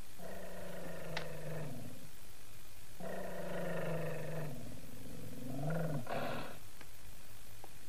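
A small dog growling and grumbling: three long, drawn-out growls, each sinking in pitch at its end, the sound of an angry, sulking dog.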